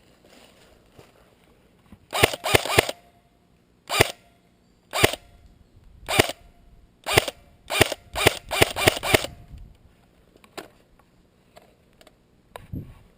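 Airsoft rifle firing: sharp pops of BB shots, singly and in quick strings, with a burst of about five shots early on, single shots about a second apart, and a faster run of shots after the middle. Fainter clicks follow near the end.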